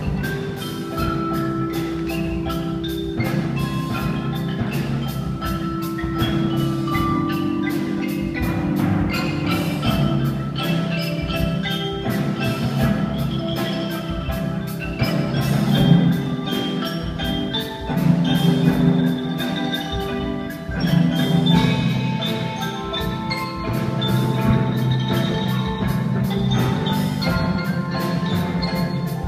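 A youth band playing a song arrangement led by mallet percussion (marimba, bells and glockenspiel), with a steady beat of struck hits under the melody.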